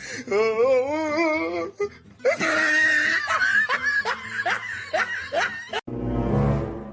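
People laughing hard in high-pitched peals, then a short rush of noise near the end.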